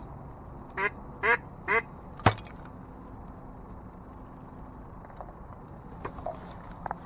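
Three short, raspy duck quacks in quick succession, about half a second apart, followed by a single sharp click.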